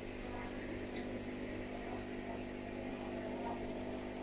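A steady hum made of several constant tones, unchanging throughout.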